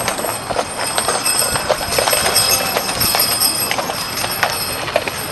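Hooves of a harnessed horse pulling a wagon, clopping in an irregular run of knocks, with the wooden wagon rattling along.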